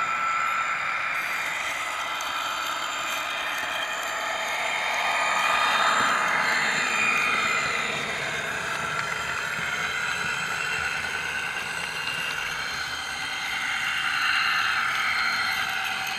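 HO scale model train running along the track: a steady mechanical whirring with a wavering whine, swelling louder twice.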